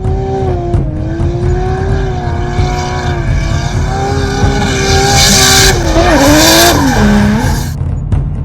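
Ford Sierra Cosworth engine running at high revs with a steady note, which wavers and drops in pitch over the last couple of seconds as it comes off the throttle. A rushing hiss swells in the second half, over a thumping music beat.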